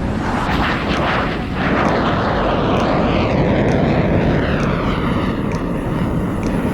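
Jet aircraft passing low overhead: a loud rushing roar that swells about a second in and sweeps down in pitch as it goes by.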